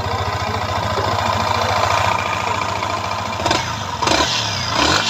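Yamaha R15 (Indonesian version 3) single-cylinder engine idling steadily, then blipped up and down a few times near the end, run to check its sound after a magneto-side repair.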